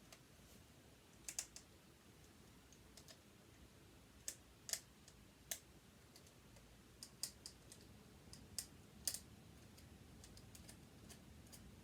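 Faint, irregular small metallic clicks and taps from a screwdriver and loose parts being worked on a sewing machine being dismantled.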